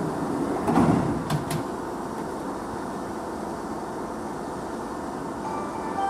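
Semboku Rapid Railway 3000 series electric train standing at the station platform with a steady hum, a few knocks and clicks in the first second and a half. A quiet station melody starts up near the end.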